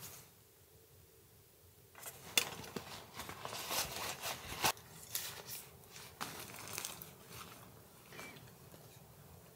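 Rustling, crinkling and scattered sharp clicks of camping gear being handled, a backpack being unpacked and a tent peg set, starting about two seconds in after a short quiet stretch. A brief high chirp comes near the end.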